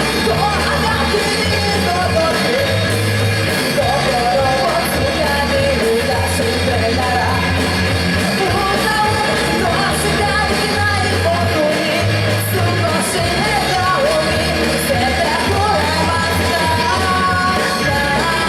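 Rock song with a lead singer: the sung melody runs over a steady, loud band backing.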